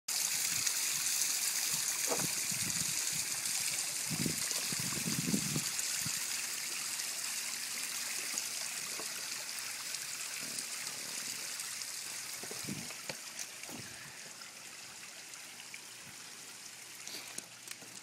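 Water running steadily over the rocks of a small waterfall, a continuous trickling hiss that fades over the last few seconds.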